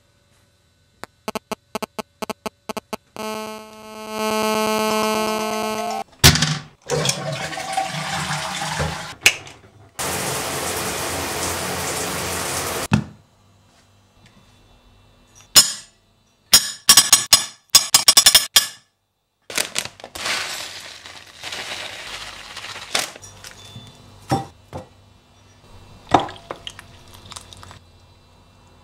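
A string of short household sounds cut one after another: quick clicks, a steady buzzing tone about three seconds in, two long stretches of rushing, water-like noise, then sharp knocks and clinks of crockery.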